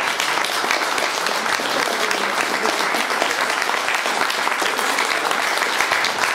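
Audience applauding in a hall: dense clapping that starts suddenly and holds steady.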